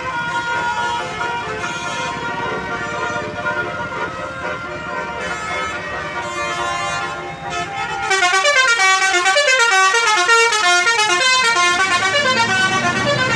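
Indonesian "telolet" musical bus horn playing a tune of stepped notes over the bus engine's low running. About eight seconds in it turns louder, into a fast run of notes rising and falling.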